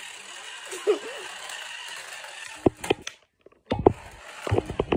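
Small remote-control toy car running across a wooden floor, its little motor and plastic wheels rattling, with a quick series of knocks and clatters in the second half.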